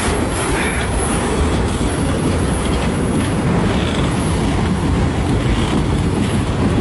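Canadian National freight train rolling past close by, its steel wheels clicking over the rail joints in a steady, loud rumble.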